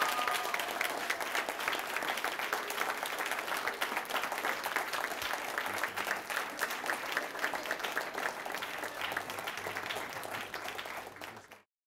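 Audience applauding: steady clapping from a roomful of people, fading out just before the end.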